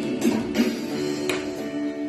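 Music: a guitar strumming chords, with a few sharp strokes among steady sustained notes.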